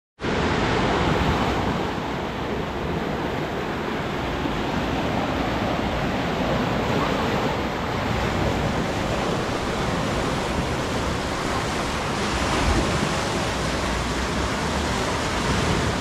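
Small Black Sea waves washing in over rocks and sand at the water's edge: a steady rushing wash of surf.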